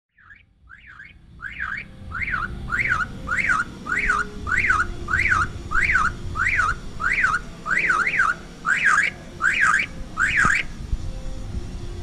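A caged common myna calling with a loud whistle that rises and falls, repeated about twice a second and sometimes doubled, stopping about ten and a half seconds in.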